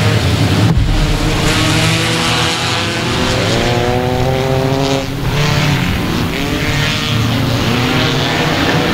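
A pack of front-wheel-drive Ecostock race cars running hard together, several engines revving at once and climbing in pitch as they accelerate. There are brief dips about a second in and about five seconds in.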